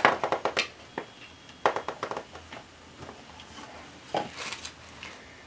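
Quiet handling noise from the studded leather belt: a quick run of soft clicks at the start, then a few single ticks and rustles.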